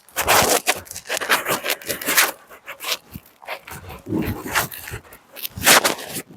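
A dog barking several times in short, separate bursts.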